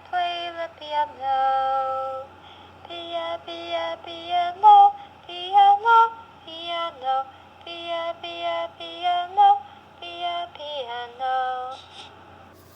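A woman's singing voice in a children's song, played back through a caterpillar reading pen's small speaker, with a steady low hum underneath.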